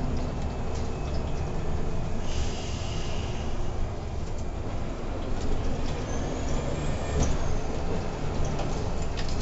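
Irisbus Crossway LE 12M bus running, heard from inside the driver's cab: a steady low engine and road rumble, with a hiss of air lasting about a second, about two seconds in. A faint high whine rises and falls later on.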